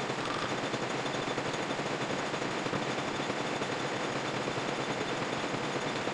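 Manual metal lathe running with a steady, fast rattle.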